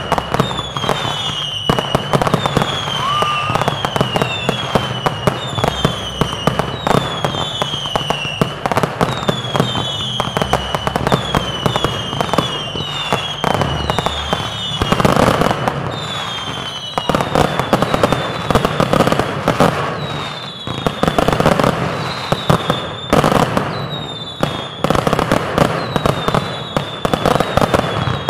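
Consumer fireworks going off in a finale: a fast, continuous run of bangs and crackles, with a whistling shot about every second, each whistle dropping in pitch. From about halfway in, the whistles thin out and louder stretches of crackling take over.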